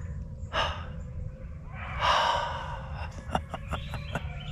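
A man breathing out hard, one short breath and then a longer, louder exhale about two seconds in, followed by a quick run of light clicks.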